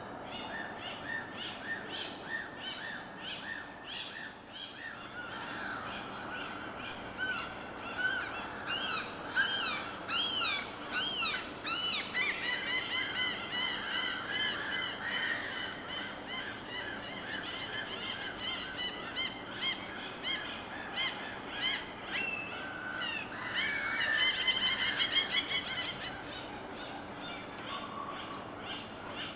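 Several birds calling over a soft, steady wash of water. The calls come as short repeated chirps and arched notes, with fast trilling from about twelve seconds in and again near the end.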